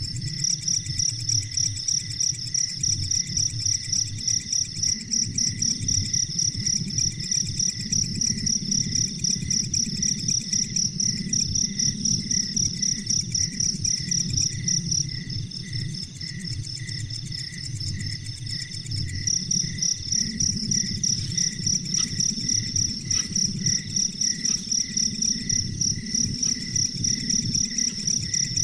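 Cricket-like insect chirping in a fast, steady pulse, about three to four chirps a second, with a low hum beneath.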